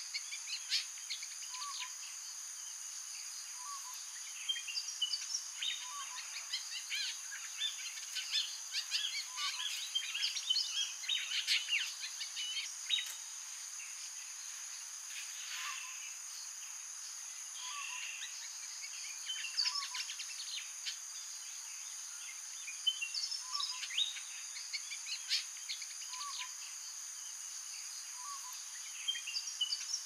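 Birds giving short chirps and calls, scattered and in bunches, over a steady high-pitched insect drone. A short, lower note repeats every couple of seconds.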